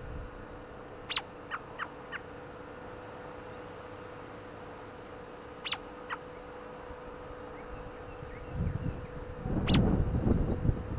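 American robin giving short chirps: a loud one about a second in, followed by three quicker, fainter ones, then a pair around six seconds, and a last one near the end. Wind rumbles on the microphone over the last couple of seconds.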